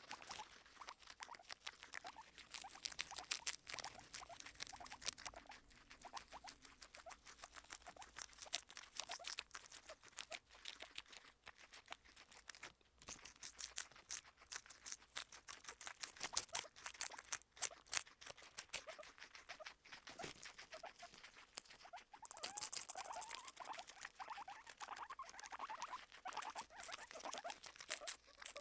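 Two guinea pigs chewing crisp lettuce right at the microphone, heard as rapid, irregular crunching clicks.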